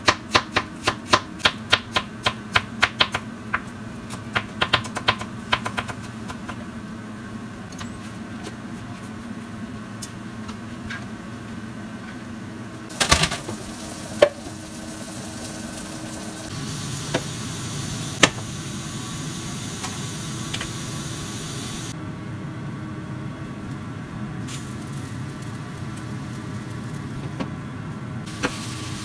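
A kitchen knife shreds cabbage on a cutting board in quick, sharp chops, about four a second, which stop about six seconds in. Past the middle there is a clatter, and a knock a second later. After that comes a steady sizzle of food frying in a pan.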